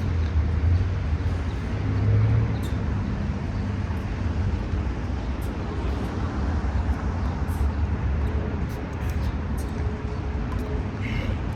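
Steady low rumble of road traffic, without clear ball strikes.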